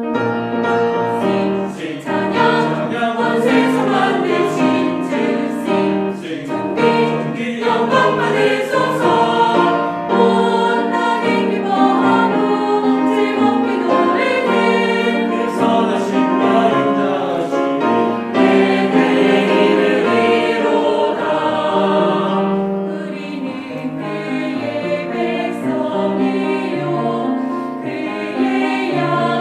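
Mixed church choir singing a hymn in Korean, with instrumental accompaniment.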